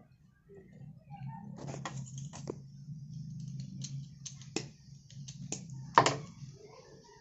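Scattered sharp clicks and taps of hand tools, needle-nose pliers and a soldering iron, being handled against a dismantled alternator and the bench. The loudest click comes about six seconds in, over a steady low hum.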